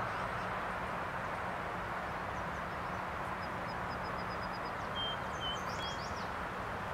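Steady outdoor background rush with faint high bird chirps: a quick run of about eight pips a little over three seconds in, then a few short whistles and chirps around five to six seconds in.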